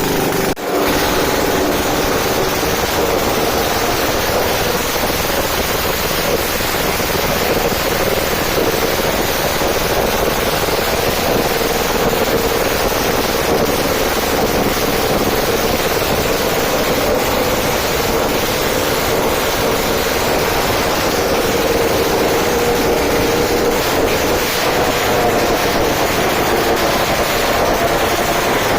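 Custom Suzuki Max 200 twin-cylinder two-stroke engine running at a steady speed on one of its first runs, loud and dense, with a short break about half a second in.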